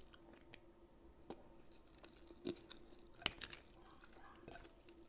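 A person chewing a mouthful of pasta with clams close to the microphone: soft, wet mouth clicks about once a second, over a faint steady hum.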